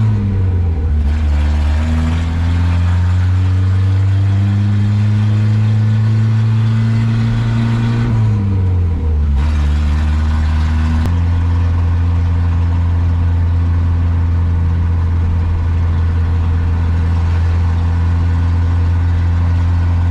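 1967 Datsun 520 pickup's four-cylinder engine running open straight out of the headers while the truck is driven. The revs fall sharply twice, at the start and about eight seconds in, climb slowly in between, then hold steady through the second half.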